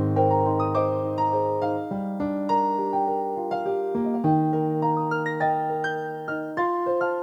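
Yamaha NP-11 digital keyboard playing a slow piece. Held low chords change about every two seconds under a melody of single notes, each struck note fading away.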